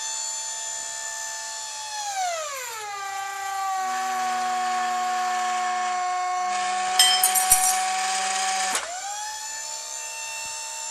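Hydraulic pump motor of a tubing bender running steadily. About two seconds in its pitch drops and stays low while it drives the ram bending a 1.5-inch, 0.250-wall DOM steel tube, working up to about 1,200 PSI. A cluster of sharp ticks comes shortly before the pitch rises back, about nine seconds in, as the load comes off.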